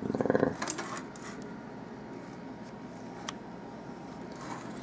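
Quiet room noise with a few faint clicks from handling a partly dismantled car stereo's metal chassis.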